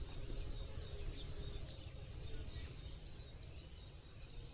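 Faint background ambience: high-pitched insect chirping in repeated stretches over a low rumble.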